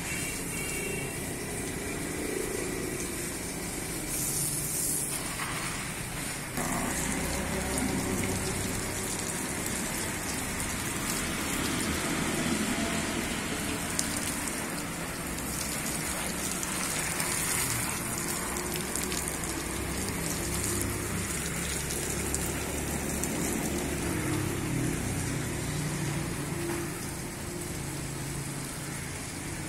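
Water spraying from a garden hose onto the broad leaves of a tree, a steady rush of spray on foliage that grows louder about six seconds in.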